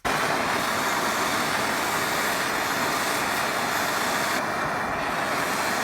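Handheld plumbing torch burning with a steady, loud rushing hiss that comes on suddenly at the start, heating a fluxed copper pipe joint before the solder is fed in.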